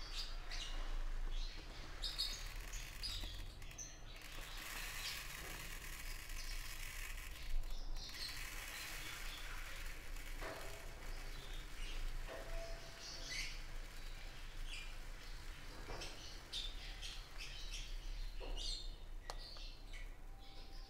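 Small birds chirping in short, scattered calls throughout. From about four to eight seconds in there is a hissing rustle of tiny Perle Morbide food pellets being poured from a bag into a plastic tray.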